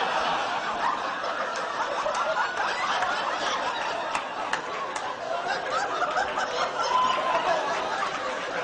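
A large audience laughing, a dense, steady wash of many voices that keeps going without a break.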